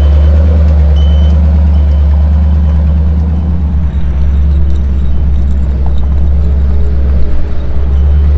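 Truck engine idling, a loud, steady low drone with slight shifts about halfway through and near the end.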